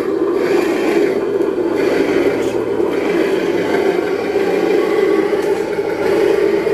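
Simulated engine sound from a 1/10-scale RC Defender D90's sound module, played through its small onboard speaker: a steady running note that is thin in the bass.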